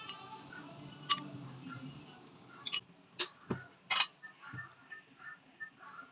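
A handful of sharp clicks and knocks, like utensils or dishes being handled while cooking. The loudest comes about four seconds in. Faint background music fades out in the first couple of seconds.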